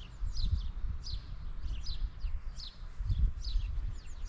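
A small songbird calling over and over, short falling chirps about two a second, over a low uneven rumble.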